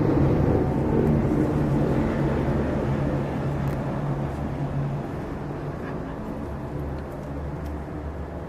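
A motor vehicle's engine running with a steady low hum and noise, loudest at first and slowly fading away.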